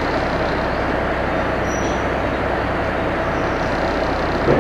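Sightseeing boat's engine running steadily with a hum over a rushing noise as the boat comes in to dock. Right at the end the engine note deepens and grows louder.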